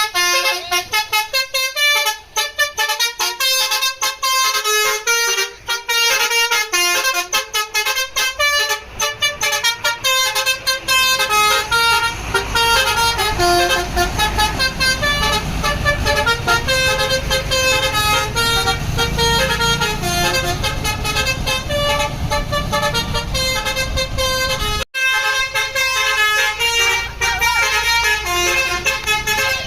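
Bus telolet horn playing a fast, stepping multi-note melody over and over, with a bus engine's low rumble under it for a stretch in the middle. The tune breaks off abruptly about 25 seconds in and starts again at once.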